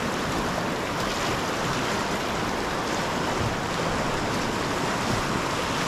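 Rushing whitewater of a class II river rapid, a steady rush of water heard up close from a kayak running through it.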